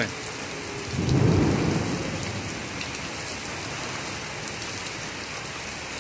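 Heavy rain pouring steadily with wind blowing in the trees during a thunderstorm, with a short low rumble of thunder about a second in.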